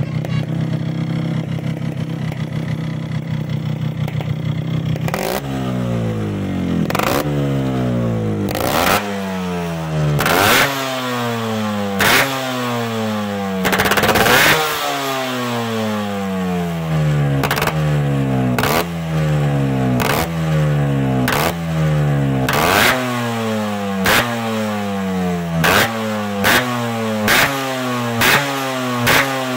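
Yamaha RX two-stroke single-cylinder engine idling through an S.U.R aftermarket silencer. About five seconds in it starts being blipped over and over: each sharp rev rises and then falls back toward idle. The blips come quicker near the end.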